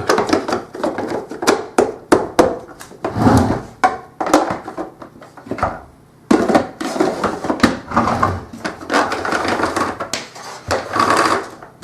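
Plastic housing and filter parts of a Samsung SC4520 vacuum cleaner being handled and fitted back together: irregular clicks, knocks and rattles, with a brief lull about six seconds in.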